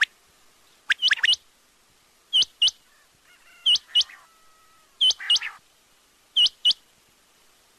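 Quail calling: short, sharp whistled notes, mostly in pairs, a pair about every second and a half. The calls stop about a second before the end.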